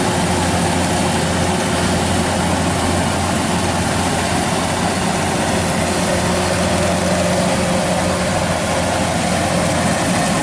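Kubota DC-93 combine harvester's diesel engine and threshing machinery running steadily at work harvesting rice, a constant low engine hum under a dense mechanical clatter.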